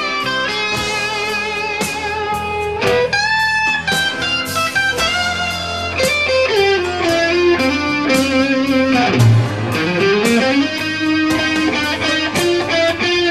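Electric guitar playing a lead line of sustained, bent and sliding notes over a steady low tone, the melody sliding down and climbing back up about two thirds of the way in.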